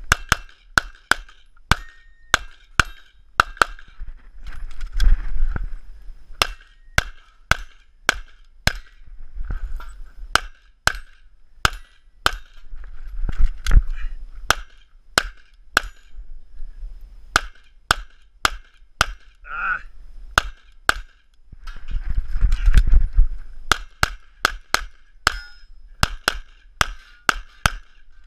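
Handgun fired in rapid pairs and short strings, dozens of shots with brief pauses between them, during a timed action-pistol stage. Bursts of low rumble come between some of the strings.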